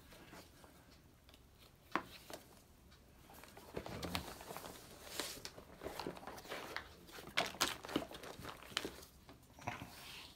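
Handling noise of a suede leather tool roll being folded and rolled up on a wooden table: soft rustling of the leather with scattered light clicks and taps, one sharper click about two seconds in.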